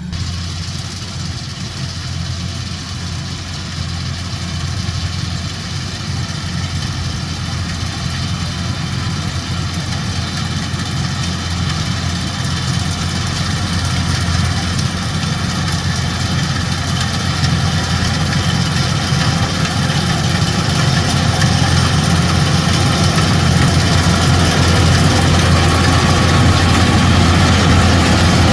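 Kubota DC-105X combine harvester's diesel engine running steadily with a low drone and machinery noise, growing gradually louder.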